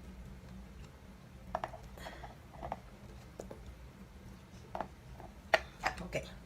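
Scattered light clicks and knocks of kitchen items being handled, with a few sharper knocks near the end, over a steady low hum.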